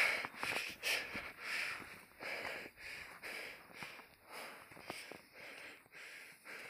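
A person breathing hard through the nose and mouth while walking uphill, short noisy breaths about once or twice a second, growing fainter toward the end: out of breath from a steep high-altitude trek.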